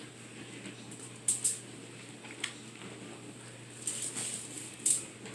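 Aluminium foil crinkling in short crackly bursts as pieces of cauliflower are set onto it, once about a second in and again around four to five seconds in.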